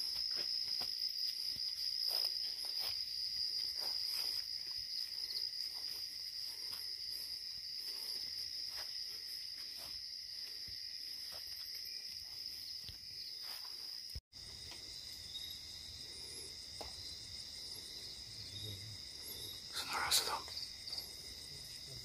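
Night insect chorus, mainly crickets, trilling steadily at a high pitch, with faint rustling and handling clicks and a brief louder sound about twenty seconds in.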